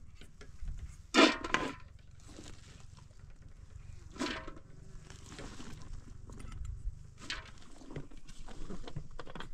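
Short animal calls, the loudest about a second in, another at about four seconds and a weaker one near seven, over the soft handling of sliced onions being dropped by hand into an aluminium pot.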